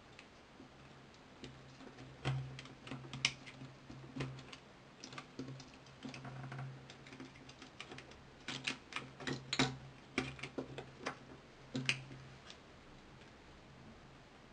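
Irregular small clicks and taps, in two bursts, as fingers press and pry at a mobile phone's plastic front frame and LCD panel to work it loose.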